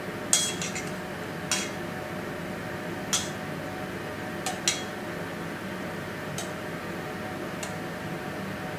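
Metal tongs clinking against a stainless-steel bowl and pan as pieces of raw salmon are lifted across: about seven short, sharp clinks at irregular intervals over a steady hum.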